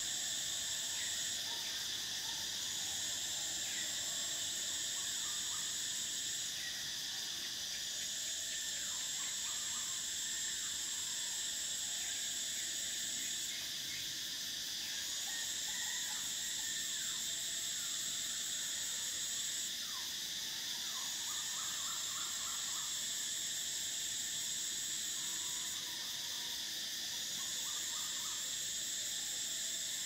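Chorus of tropical cicadas: a steady high-pitched drone, with a second, higher buzz that breaks off for about a second roughly every six seconds and then resumes. Faint short calls and trills sound underneath.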